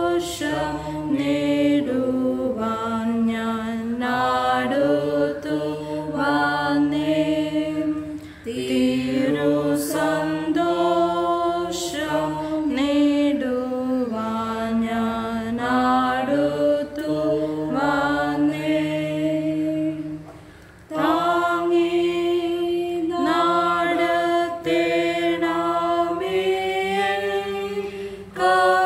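A man chanting a sung Malayalam liturgy in a slow melody with long held notes. The singing breaks off briefly about eight seconds in and again around twenty seconds in.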